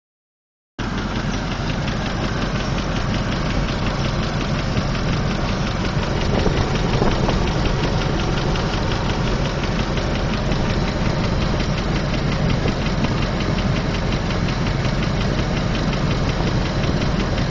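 2003 Land Rover Discovery II engine idling steadily with a rapid, regular ticking from the engine area. The owner suspects the lifters or an exhaust leak at the manifold or headers.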